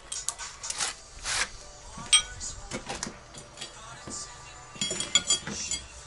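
Irregular knocks and clatter of tools and hardware being handled, with several short metallic clinks that ring briefly. The clinks cluster about five seconds in.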